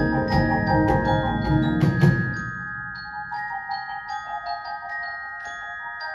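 Percussion ensemble playing: marimbas and other mallet keyboards over electric bass and sharp percussive hits. About two seconds in, the bass and hits drop out, leaving high, ringing mallet-keyboard notes.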